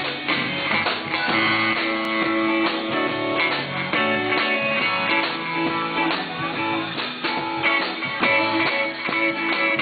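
Live band playing an instrumental passage led by guitars, with strummed rhythm guitar and picked guitar lines over a steady beat, no vocals.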